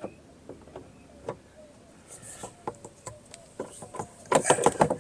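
Scattered clicks and taps of a Phillips screwdriver being fitted to and turning the screws that hold a truck's exterior door handle, with a denser, louder run of clicking and rattling near the end.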